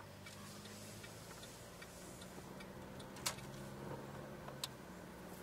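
A car's turn-signal indicator ticking steadily over a low engine hum inside the vehicle, with two sharper clicks about three seconds in and again a second and a half later.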